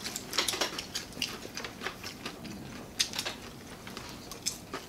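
Close-miked eating sounds: irregular crunches, clicks and lip smacks of people chewing and picking at food with their hands.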